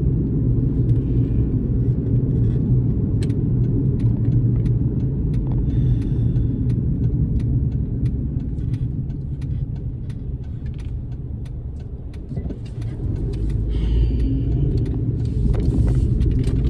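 Car road noise heard from inside the cabin while driving: a steady low rumble of engine and tyres. It eases off a little after about eight seconds and builds again in the last few seconds.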